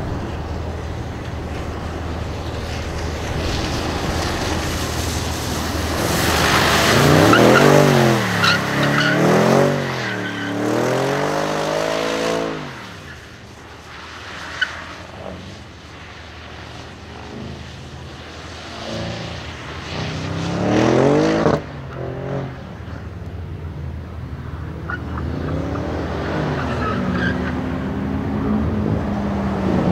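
Audi RS6 Avant drifting on wet asphalt: the engine revs rise and fall several times as the car slides, loudest about seven to twelve seconds in and again around twenty seconds, with tyres skidding on the wet surface.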